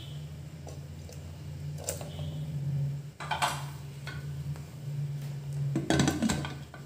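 A metal cake tin set down inside a pressure cooker with a few light metal clinks, then the pressure cooker's lid fitted and closed with a louder metal clatter near the end. A steady low hum runs underneath and stops just before the lid goes on.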